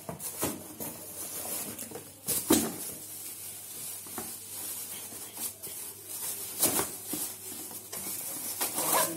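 Clear plastic wrapping crinkling and rustling as a new shoe is unwrapped and handled, with a couple of louder crackles.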